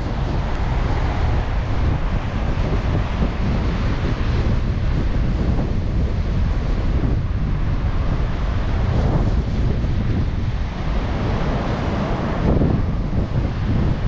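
Wind blowing across the microphone as a loud, steady low rumble, over the wash of rough ocean surf breaking on the beach.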